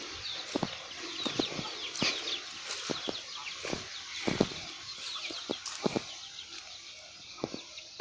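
Small birds chirping busily, many short falling chirps, with irregular sharp knocks and crunches close by. No chainsaw is running.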